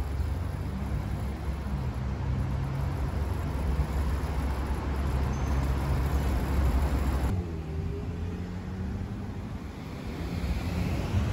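Street traffic: road vehicles running past with a steady low engine hum and tyre noise. It cuts off abruptly about seven seconds in, then a quieter stretch follows as another vehicle approaches near the end.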